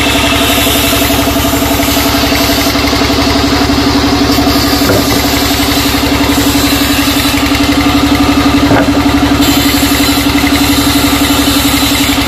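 Sawmill band saw machinery running steadily with a pulsing mechanical hum. Two light knocks come about halfway through and again later.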